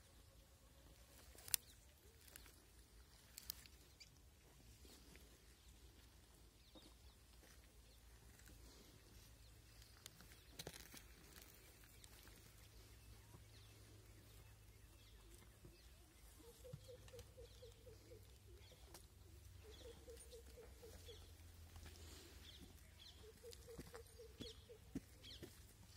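Near silence, with a few faint sharp clicks and three faint trilling pulses of about a second each in the second half.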